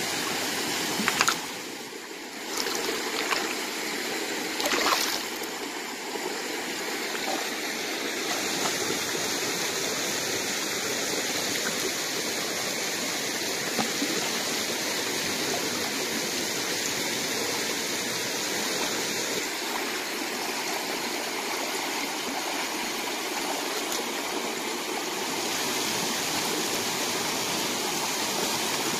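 Shallow rocky stream running steadily over stones. There are a few brief sharp sounds in the first five seconds, the loudest about a second in.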